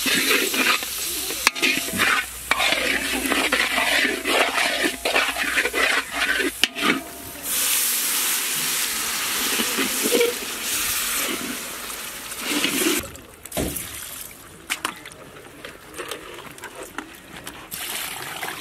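Dried red chillies and ground spices frying in oil in a large iron kadai, stirred and scraped with a metal ladle. About seven seconds in, a loud hiss takes over as the hot pan throws up a thick cloud of steam, cutting off about six seconds later. Near the end come softer splashing sounds as raw chicken pieces are washed in a pot of water.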